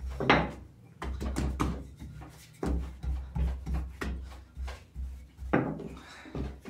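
Hands working rosca dough on a work board: a run of soft knocks and rubbing as the dough is pressed, rolled and stretched, about one to two a second.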